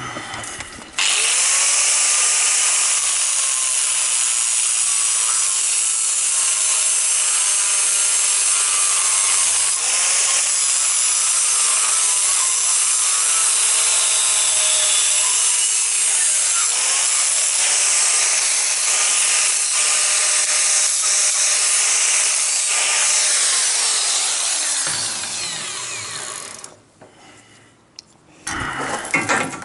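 Angle grinder starting suddenly about a second in and running under load on a steel bolt held in a vise, its pitch wavering as it bites. Near the end it is switched off and spins down, falling in pitch.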